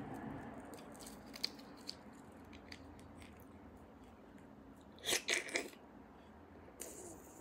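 Close-miked eating sounds of roasted beef bone marrow: light clicks and chewing, then a loud cluster of wet smacks about five seconds in. Near the end comes a hissing suck at the marrow bone.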